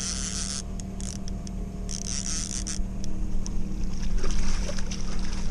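Boat motor humming steadily, with two short hisses in the first three seconds and a louder, rough hissing noise over the last two seconds.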